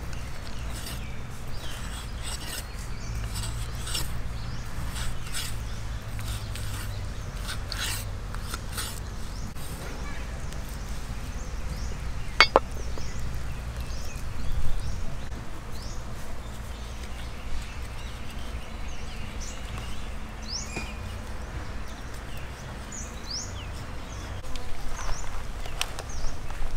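A cleaver scoring the skin of a raw whole chicken on a wooden chopping board: soft cutting and scraping with scattered light taps, and one sharper tap about halfway through, over a low steady background.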